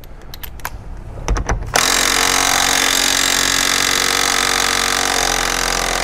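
A few light clicks of handling, then from about two seconds in an impact wrench with a Torx 50 socket runs loudly and steadily, hammering out a seat belt anchor bolt held with blue thread locker.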